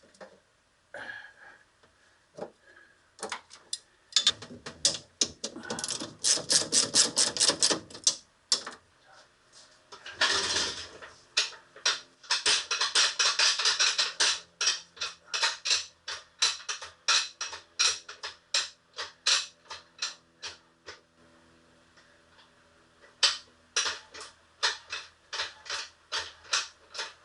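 Hand ratchet wrench clicking in quick, even runs as nuts are run down onto studs, in several bursts with pauses between. A short scraping rush about ten seconds in.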